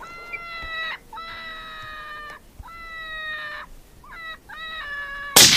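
A series of about five drawn-out calls, each held on one pitch for up to a second, the last few shorter and choppier, then a single loud rifle shot cracks near the end.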